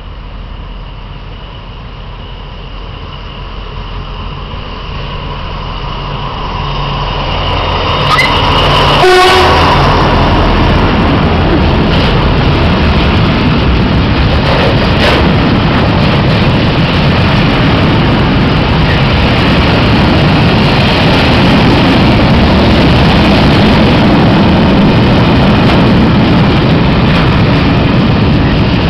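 Freight train approaching and passing close by. The locomotive's horn sounds briefly about eight to nine seconds in as it reaches the platform, then a long train of grain hopper wagons rolls past in a loud, steady rush of wheel and rail noise.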